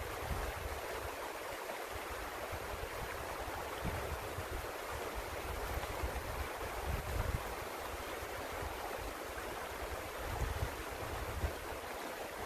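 Small creek running steadily over rocks, with wind buffeting the microphone now and then.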